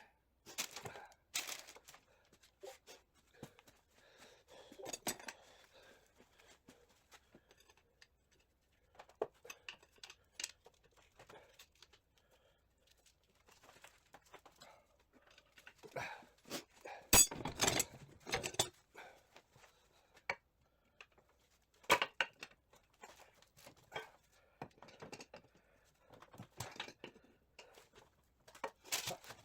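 Scattered metal clinks, taps and scrapes of hand tools against the steel shafts and gears inside a Triumph TR6 gearbox being dismantled. A little past halfway comes a louder cluster of knocks and scraping, then a single sharp clink.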